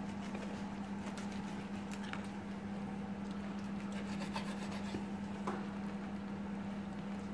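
Kitchen knife slicing and scraping through a raw salmon head on a wooden cutting board, with scattered faint ticks as the blade meets the board. A steady low hum runs underneath.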